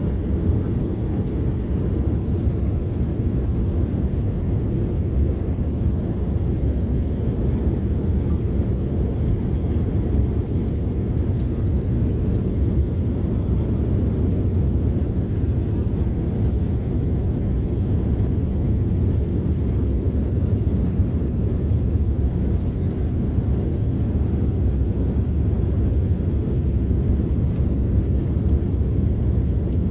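Airliner cabin noise during takeoff and initial climb: the jet engines at takeoff thrust and the rush of the airframe make a loud, steady low rumble.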